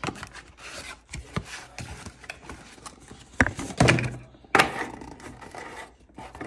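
Cardboard watch box being opened and its hexagonal tin taken out and set on a desk: rubbing and scraping of cardboard with scattered knocks, the loudest a little past the middle.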